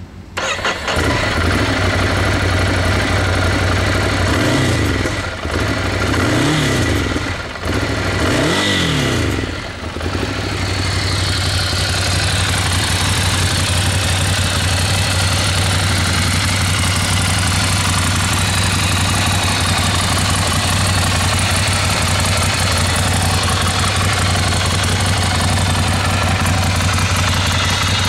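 Ducati Scrambler Desert Sled's 803 cc air-cooled L-twin on its stock exhaust, starting about half a second in. It is blipped three times, each rev rising and falling back, then settles to a steady idle from about ten seconds in.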